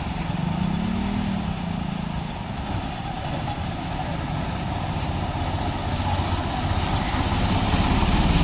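Small engines driving through a flooded road: a motorcycle's engine note rises and falls about a second in, then an autorickshaw's engine grows steadily louder as it approaches, with water churned and splashing under the wheels.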